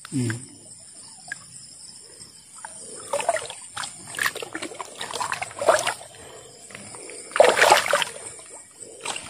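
Shallow river water splashing and sloshing in irregular bursts as someone moves through it, with the loudest splash near the end.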